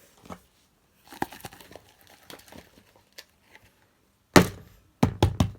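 Close handling noise of small objects, soft rustling and clicks, then one loud thump about four seconds in followed by a quick run of knocks.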